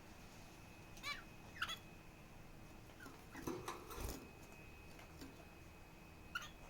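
Small pet parrot giving short, high chirps a second or more apart, with a busier run of softer calls and a low bump a little past halfway. A faint steady high tone runs underneath.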